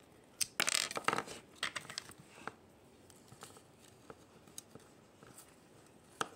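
A burst of clicking and rustling from small hard objects being handled close to the microphone, starting about half a second in, then scattered light clicks and one sharp click near the end.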